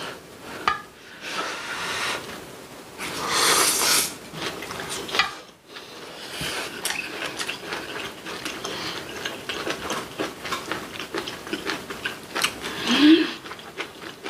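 Close-miked eating sounds of braised kimchi: a noisy slurp a few seconds in, then rapid wet crunching and smacking as it is chewed, with light chopstick and bowl clicks. A short rising hum of appreciation near the end.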